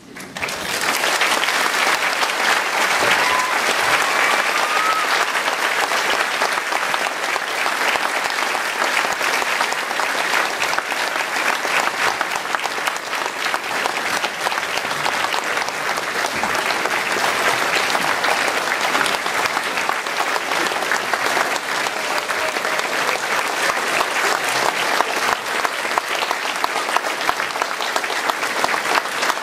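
Large crowd of graduates and audience clapping: steady, sustained applause that builds up within the first second, in answer to a speech just finished.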